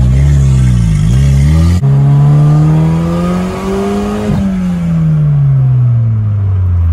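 Turbocharged Pontiac Solstice GXP four-cylinder, heard from inside the cabin through an exhaust cutout stuck open, accelerating hard: the engine pitch climbs, shifts about two seconds in, climbs again until about four seconds in, then falls as the throttle comes off. The engine pulls without breaking up, which the owner takes as the taped turbo hose now holding boost.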